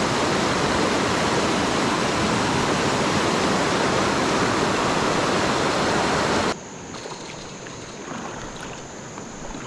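Creek rapids rushing over rocks, a loud steady wash of white water. It cuts off sharply about six and a half seconds in, leaving a much quieter flow of water.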